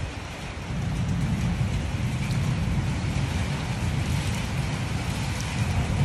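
Strong wind gusting and buffeting the microphone: a low rumble that swells about a second in, over a steady hiss.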